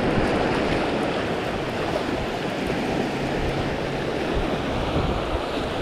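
Small surf waves washing onto the beach with wind on the microphone, a steady rushing noise.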